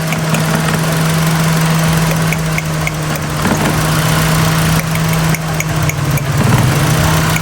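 Toyota Corolla XLi four-cylinder engine idling unevenly with a misfire. The idle note wavers about halfway through and again near the end. The misfire is put down to water in an ignition coil.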